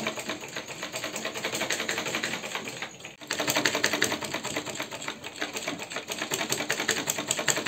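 Black domestic sewing machine stitching cloth: a rapid, even clatter of the needle mechanism. It breaks off for a moment about three seconds in, then runs on.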